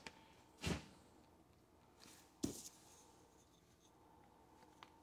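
Hands adjusting a tub drain-and-overflow assembly: a short scrape about a second in, then a sharper knock, with a small tick near the end.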